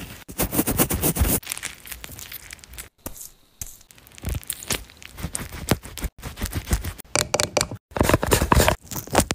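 Close-miked crinkling, sticky peeling and rubbing of a wet sheet face mask being handled on the face, in short clips with abrupt breaks between them. Near the end come handling sounds from a plastic cosmetics jar.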